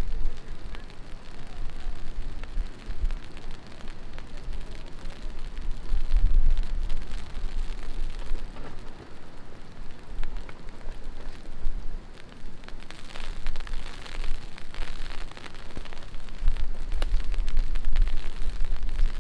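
Heavy rain falling, an even hiss of noise with many small drop impacts. Bursts of low rumble come about six seconds in and again near the end.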